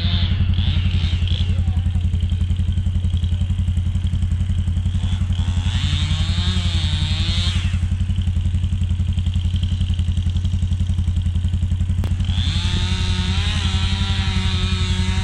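Chainsaw running over a steady low drone, its pitch rising and falling several times as it is throttled and loaded in the cut. A sharp click comes about twelve seconds in.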